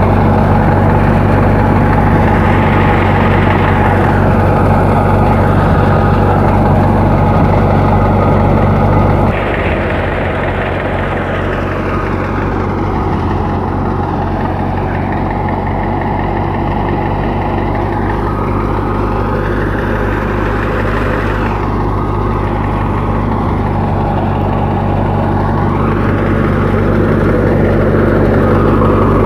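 Massey Ferguson 385 tractor's diesel engine running steadily at working speed. About nine seconds in the sound shifts abruptly, settling slightly lower and quieter.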